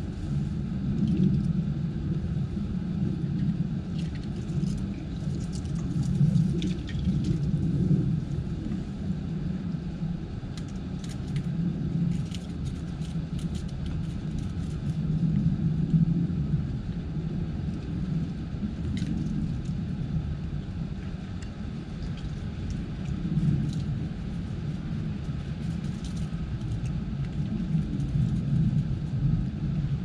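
Steady low rumble of distant road traffic, swelling and easing, with a few faint clicks over it.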